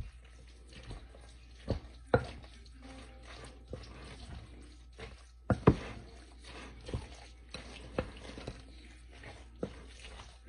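A utensil stirring a thick, mayonnaise-dressed tuna pasta salad in a bowl, giving irregular wet clicks and knocks against the bowl. The loudest knock comes about five and a half seconds in.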